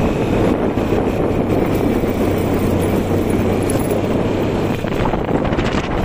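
Beker Cross 150cc motorcycle running along a dirt track at a steady pace, its engine note holding steady for most of it, with heavy wind noise on the microphone.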